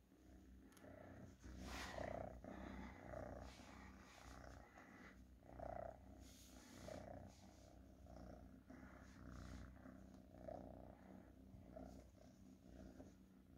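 A domestic cat purring softly while being stroked, a low steady purr that rises and falls about once a second with its breathing.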